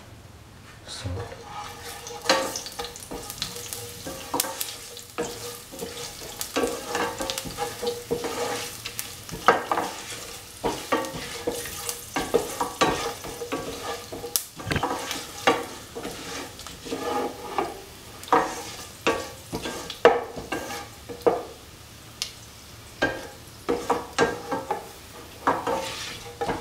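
Fennel seeds, cinnamon, cloves and peppercorns frying in oil in a nonstick pan, stirred with a spatula. The spatula scrapes and taps the pan over and over, starting about a second in, above a light sizzle.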